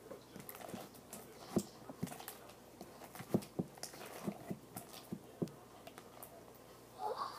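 Homemade glue slime being kneaded by hand in a bowl, giving irregular wet squelching pops, about eight of them spread over a few seconds.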